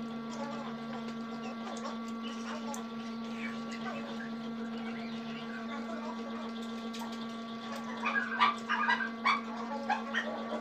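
Steady electrical hum throughout, with faint scattered ticks and, in the last few seconds, a run of louder short irregular sounds.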